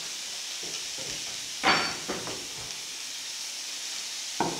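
Skewered meat frying in shallow oil in a pan, a steady sizzle. There are two louder sudden sounds, one just under two seconds in and one near the end.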